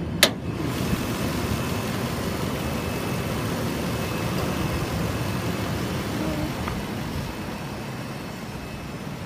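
Nissan Armada's 5.6-litre V8 idling steadily, with one sharp click about a quarter second in.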